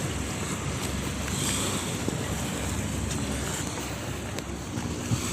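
Steady wind noise rumbling on the microphone, with sea waves washing in the background.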